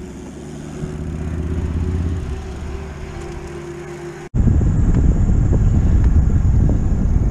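A steady low engine-like hum swells and eases, then about four seconds in it cuts abruptly to loud wind rumble on the microphone of a moving bicycle.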